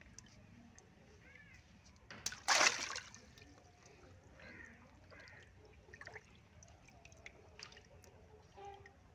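A water balloon bursting in a plastic tub of water about two seconds in, one short loud splash, followed by light sloshing and dripping as hands move in the water.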